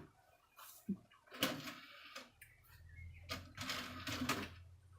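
Desktop PC's optical drive running its mechanism: uneven whirring and rattling, with a steady low hum setting in about halfway through. The hum is the noise the owner finds wrong and takes as reason to replace the drive.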